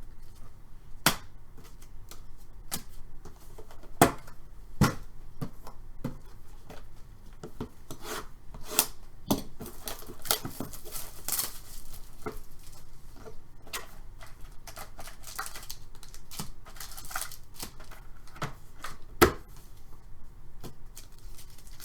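Hockey trading card packs being opened and thick cards handled on a table: irregular clicks and taps of cards being shuffled and set down, with rustling and tearing of pack wrappers and a few sharper knocks.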